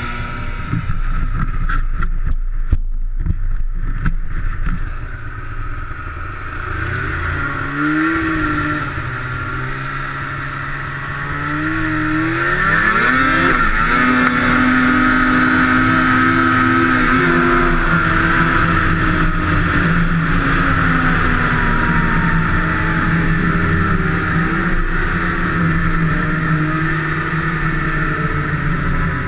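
Two-stroke snowmobile engine running, its pitch climbing steeply about halfway through as it revs up, then holding high and fairly steady.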